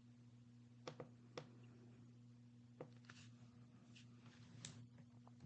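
Near silence over a low steady hum, with a few faint computer mouse clicks: a quick pair and a third about a second in, another near three seconds, then faint scratchy sounds.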